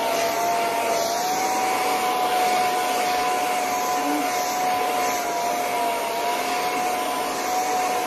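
Handheld hair dryer running steadily, blowing hot air through thick natural hair, a constant rush of air with a steady whine in it.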